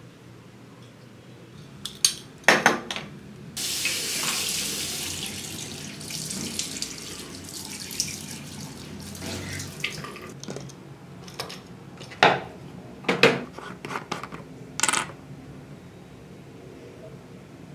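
Bathroom tap turned on and water running into the sink while a face is washed, with a few sharp clicks just before the water starts. After the tap stops there are several short splashes and knocks at the sink.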